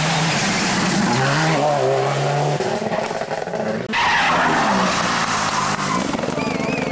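A rally car engine at high revs, its pitch climbing in steps as it shifts up through the gears. About four seconds in, the sound changes abruptly to a Mitsubishi Lancer Evolution rally car sliding through a tight asphalt hairpin, its tyres squealing as the engine drops and then revs up again.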